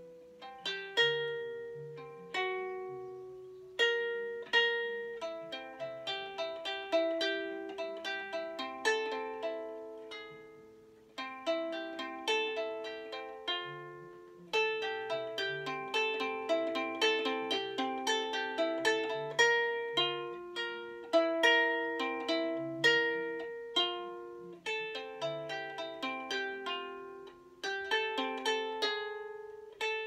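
Solo ukulele, plucked note by note in an uneven, halting rhythm, with short pauses about eleven and fourteen seconds in. The melody follows the COVID-19 genome sequence, each base G, C, T and A played on the G, C, E and A strings.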